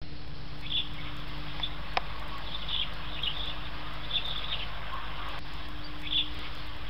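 Small birds giving short high chirps every second or so over a steady low rumble, with one sharp click about two seconds in.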